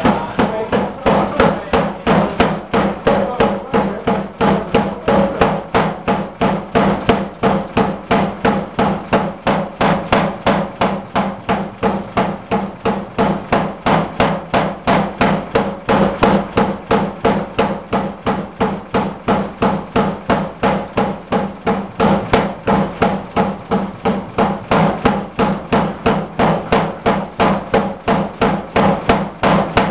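Vulkan DRP air hammer (pneumatic forging hammer) striking red-hot steel in a steady rapid rhythm, about three blows a second, over a steady hum.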